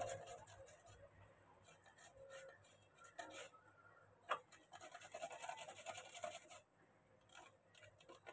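Faint, repeated scraping strokes of a raw peeled potato being rubbed back and forth across a metal hand grater, with one sharp knock about four seconds in.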